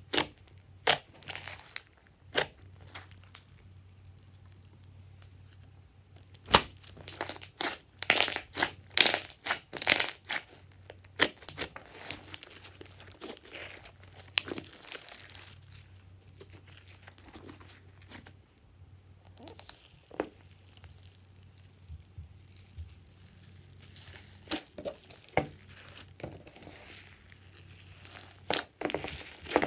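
Hands squeezing and kneading glossy slime, making sticky clicks and pops in clusters with quieter spells between.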